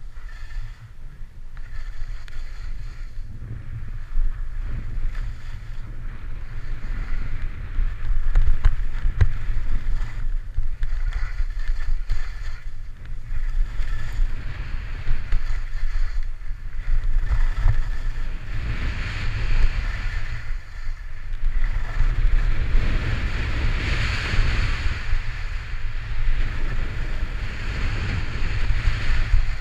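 Wind buffeting the microphone of a skier running down a groomed slope, with the skis hissing and scraping on packed snow. The rumble grows over the first few seconds as speed picks up, and the scraping swells and fades every few seconds.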